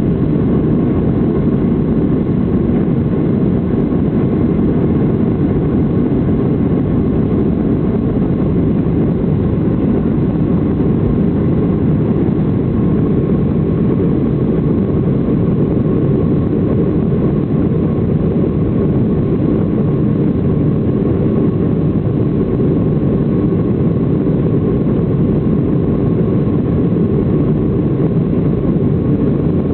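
Steady jet-engine and airflow noise heard inside a Boeing 757-200's cabin during departure: a deep, even rumble with a faint steady whine above it.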